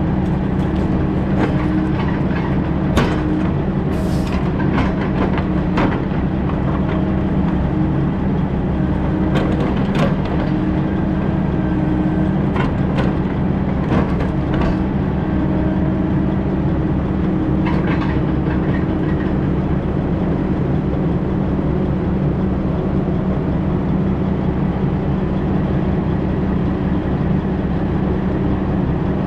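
Heavy diesel engine of logging machinery running steadily under load, with scattered sharp knocks and clanks, mostly in the first half.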